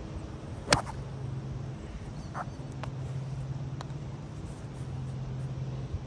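A golf iron strikes a ball off a driving-range turf mat with one sharp crack about a second in, followed by a few light clicks as the club rakes a new ball out of the range basket.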